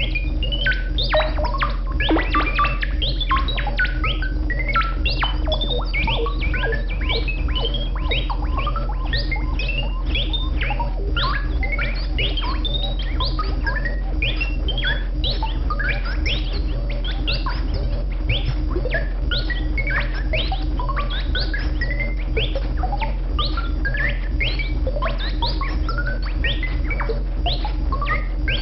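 Buchla and Eurorack modular synthesizer playing a dense stream of quick chirping pitch sweeps, mostly sharp downward falls mixed with short rising blips, several each second, over a steady low drone.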